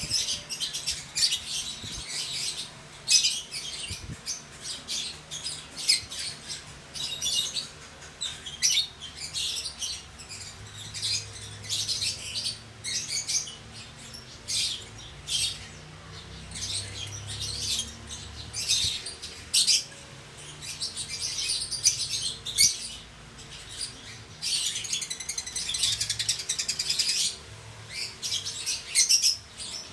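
Bouts of rapid, high-pitched chirping, each lasting a second or two, with short gaps between.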